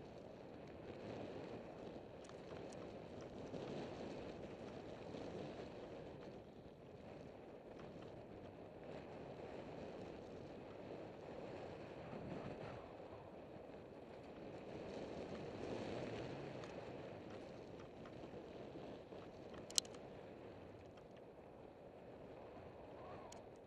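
Mountain bike rolling fast over a gravel dirt trail: a rushing of tyre noise and wind on the microphone that swells and fades, with one sharp click near the end.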